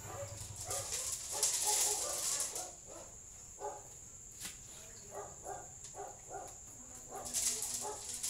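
A dog barking and yipping in short, repeated calls, often in pairs, with two louder stretches of hissing noise: one early on and one near the end.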